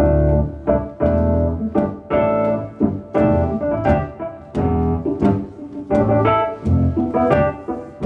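Solo jazz piano improvising: chords and low bass notes struck in an uneven rhythm, each left to ring and fade before the next.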